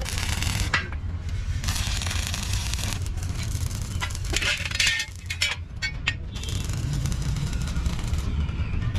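Stick-welding arc crackling in short spells, with sharp clinks of small steel pieces being handled and set down between them, over a steady low hum.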